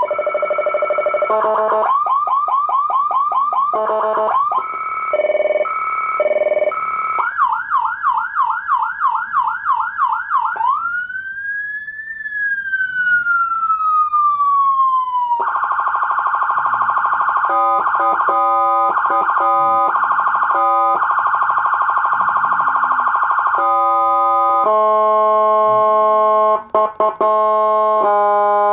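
150HX 150-watt electronic siren amplifier and speaker stepping through its tones: rapid yelp sweeps, a two-tone hi-lo, then one slow wail rising and falling. It ends with steady multi-note horn tones, cut off and restarted in short blasts.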